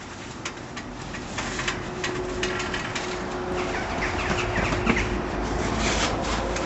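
Handling noise from a handheld camera carried by someone climbing and walking: rustling and scattered small knocks, with a low wind rumble on the microphone that grows toward the end.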